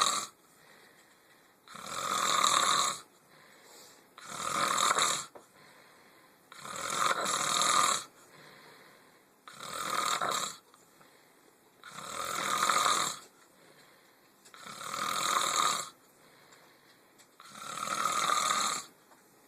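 Loud snoring: a snore about every two and a half seconds, each about a second long, swelling and then cutting off, with quiet between them.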